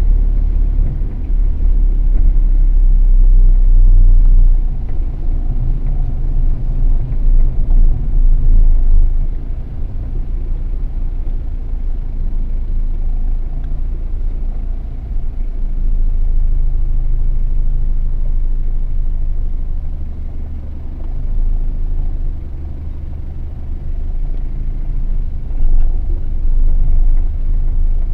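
Low, continuous rumble of a car driving along a town road, engine and road noise swelling and easing several times.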